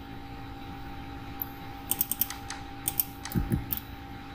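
Clicking of a computer mouse and keyboard in a few quick clusters, with a dull thump about three and a half seconds in, over a steady faint hum.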